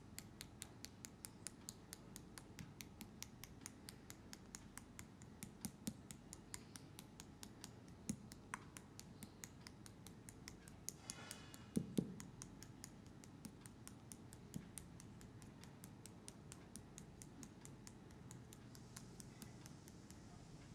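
Faint barber's scissors snipping in a steady rhythm, about three to four snips a second. A louder knock and clatter comes about twelve seconds in.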